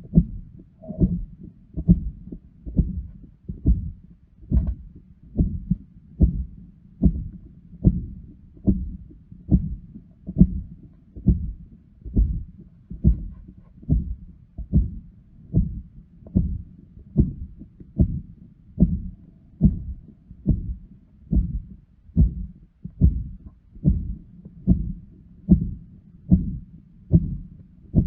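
Heart sounds heard through a stethoscope: a regular heartbeat at just over one beat a second, with a pathological murmur heard between the beats.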